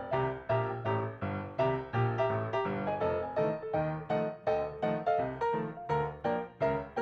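Background piano music: a steady run of evenly spaced notes, about two to three a second.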